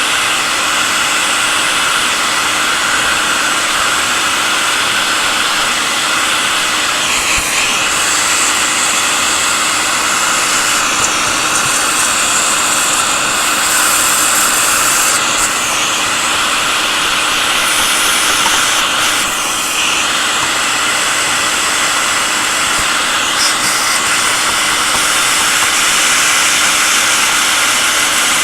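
Vacuum cleaner running steadily: a constant loud rushing hiss with a faint hum under it, its upper range dipping briefly about five times.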